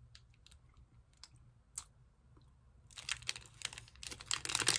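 A person chewing a crunchy muesli bar with nuts and chocolate. There are scattered small crunches at first, then denser crackling from about three seconds in.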